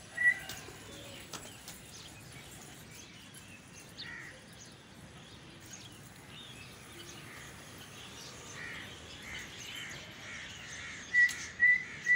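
Faint scattered bird calls over open-air background noise. About eleven seconds in, a run of short, sharp whistles starts, repeating about three times a second.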